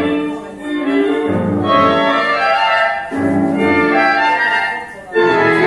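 Tango orchestra music with violins and piano, playing in short, clipped phrases with brief breaks about half a second, three seconds and five seconds in.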